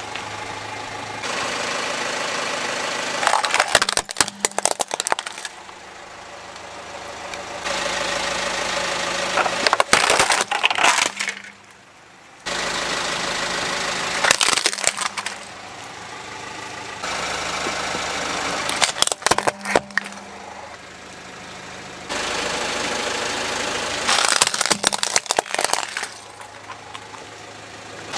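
A car tyre rolling over toy model cars and crushing them: about five bursts of sharp plastic and metal cracking and crunching, between stretches of a car engine running steadily.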